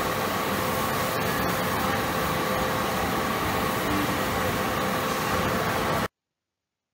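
Steady running noise of machinery in a railway wheel shop around a wheel-turning lathe, with a steady whine and a few faint clicks about a second in. It cuts off suddenly about six seconds in.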